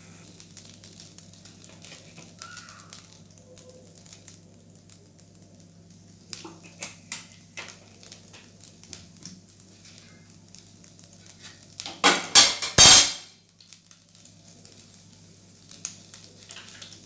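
Oil heating in a pan, with faint scattered ticks over a low steady hum. About twelve seconds in there is a short, loud clatter of kitchenware.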